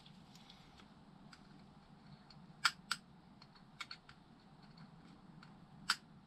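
Quiet clicks and taps of small metal motorcycle rear-suspension linkage parts being handled and turned by hand while their bearings are checked for tightness. There are a few sharper clicks in the middle and one near the end.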